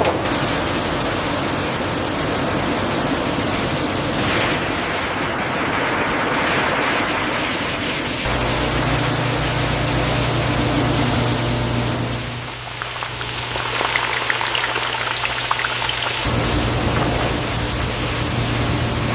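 Potato chip production-line noise: a steady rain-like hiss that changes character every few seconds, with a low machine hum under some stretches.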